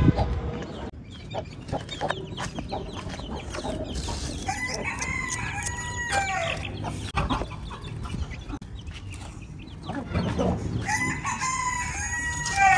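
A rooster crowing twice, each crow a long drawn-out call, the second starting about six seconds after the first, with hens clucking in between.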